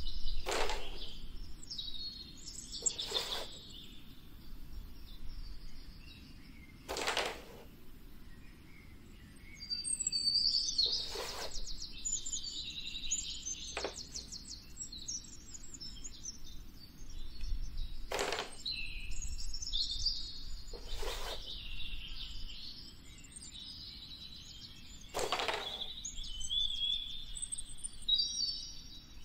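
Birds chirping steadily, with a sharp clack every few seconds, about eight in all, as a carrom striker is flicked into the coins on a wooden carrom board.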